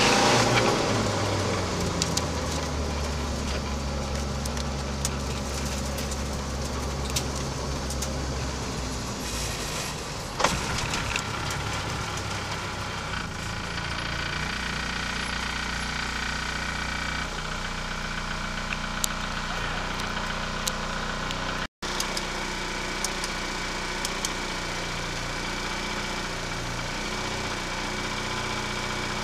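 Škoda Fabia RS TDI rally car's turbodiesel engine coming off load at the end of the stage, the revs falling in the first second and then settling to a low, steady run as the car rolls slowly. The sound cuts out for an instant about two-thirds of the way through, and after that the engine idles steadily.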